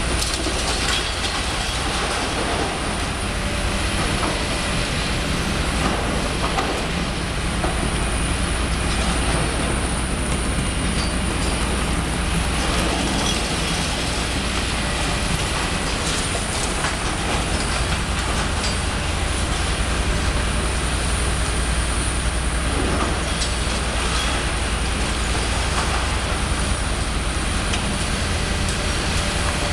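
Demolition excavator working with its hydraulic demolition jaws on a brick building: a steady engine drone under the crunch and clatter of breaking brickwork and falling rubble.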